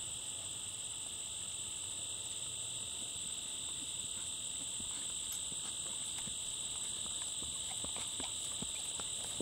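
Steady high-pitched chorus of field insects chirring without a break, with a few soft hoofbeats of a horse on grass near the end.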